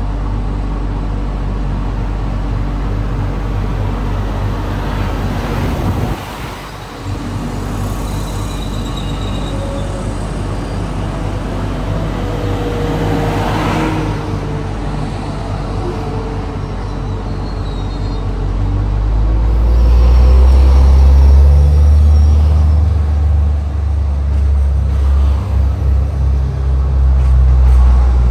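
Bombardier AGC multiple unit idling with a steady low hum while an Alstom Regiolis runs past, loudest as it passes close by about halfway through. From about two-thirds in, a much louder low rumble takes over as the AGC pulls away.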